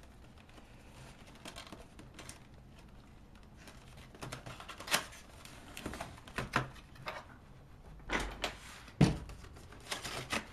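Cardboard packaging being opened by hand: scattered scrapes, taps and knocks as the box is opened and its blue cardboard inner tray is slid out, busier in the second half, with one sharp knock about nine seconds in.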